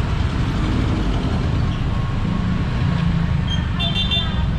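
Steady low rumble of street traffic with idling and passing vehicles. A quick run of short, high-pitched beeps sounds about four seconds in.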